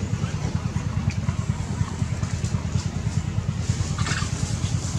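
A small engine idling steadily, a low rapid putter, with a brief rustle about four seconds in.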